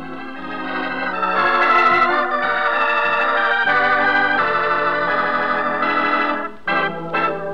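Organ playing slow, sustained chords that swell in level, with a short break near the end followed by shorter chords, as closing music.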